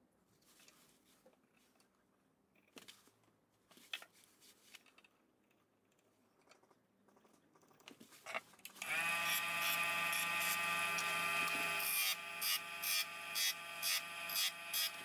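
Light clicks and handling of a pencil and caliper, then a wood lathe starts about nine seconds in and runs with a steady whine. From about three seconds later, short sharp bursts come roughly twice a second, a turning tool touching the spinning oak baluster.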